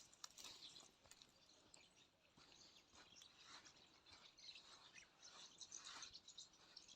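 Near silence, with faint, scattered short rustling and scraping sounds.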